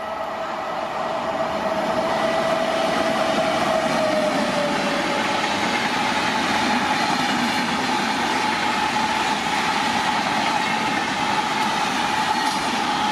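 Train running through a station at speed: wide rushing rail noise builds over the first two seconds and then holds loud, with a steady humming tone that drops in pitch about four seconds in.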